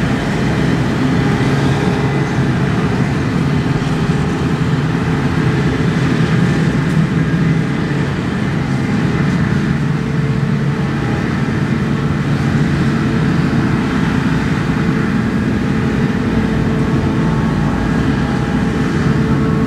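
Forage harvester and tractors running steadily while chopping maize, a continuous heavy machinery hum with no breaks.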